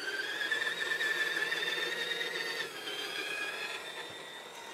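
Electric drivetrain of a 1/10 JDModel F150 Desert Runner RC truck, a brushed motor through a planetary gearbox, whining steadily as the truck drives. The pitch edges up, shifts about two and a half seconds in, and the whine fades near the end.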